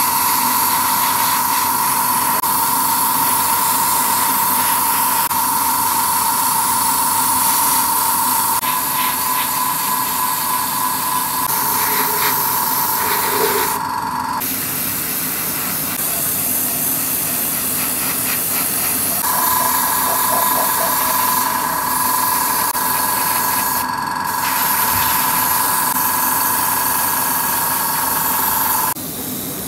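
Airbrush spraying paint with a steady hiss and a high whine. The spray breaks off briefly twice and changes abruptly a few times, then drops away near the end.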